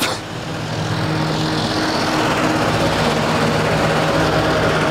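Engine running steadily: a low hum holding one pitch, growing a little louder during the first second.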